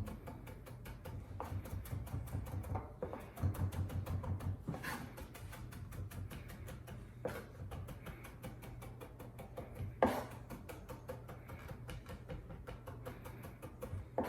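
Chef's knife rapidly chopping garlic on a cutting board to mince it, a quick run of light taps with a few sharper knocks near 5, 7 and 10 seconds in.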